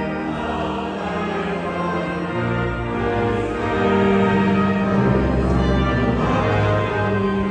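Background music: a slow piece of long sustained chords over a low bass line that moves every second or two.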